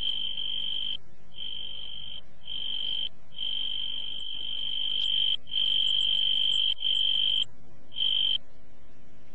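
A night-time insect trill, cricket-like, held on one high pitch and stopping and starting in uneven spells of under half a second to about two seconds.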